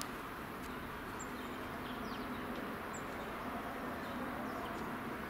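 Steady hum of a distant helicopter circling overhead, with a few short, high bird chirps about one and three seconds in.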